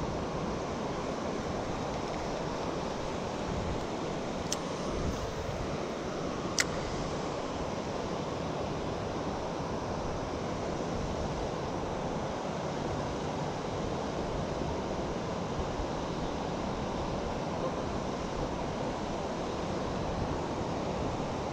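Steady rush of creek water flowing, even and unbroken, with two short clicks about four and a half and six and a half seconds in.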